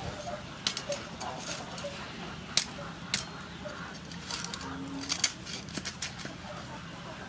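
Crispy fried pork belly skin crackling and crunching as a cleaver slices through it, a run of sharp cracks and clicks with the blade knocking on the wooden board; the loudest cracks come about two and a half and five seconds in.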